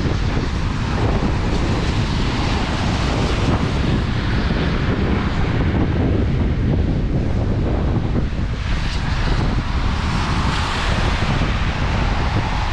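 Wind buffeting the microphones: a loud, steady rush with a heavy low rumble, growing brighter and louder about nine seconds in.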